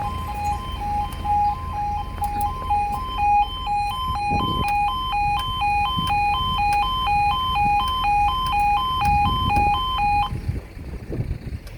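Level crossing yodel alarm sounding, two tones alternating quickly and evenly; it stops suddenly about ten seconds in. Low rumbles sound under it twice.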